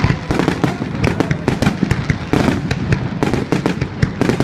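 Fireworks bursting in a dense, continuous barrage, many sharp cracks a second over a steady low rumble.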